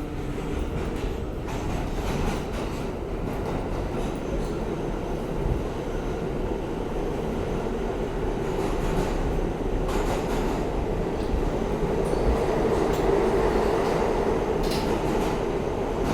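Interior of an R160A-2 New York City subway car running between stations: a steady rumble of wheels and motors with a humming tone, growing slightly louder past the middle.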